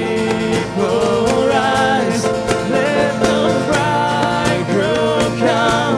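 Live band performing a country-folk worship song: guitar and other strings playing, with sung vocal lines over them.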